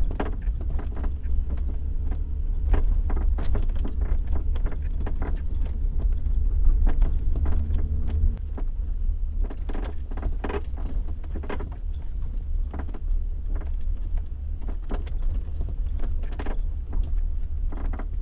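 Repeated short creaks and squeaks from a BMW X5 E53's split tailgate while driving, heard from inside the boot over a steady low road rumble. The squeak comes from the upper tailgate not pressing tightly against the lower tailgate, a known E53 fault.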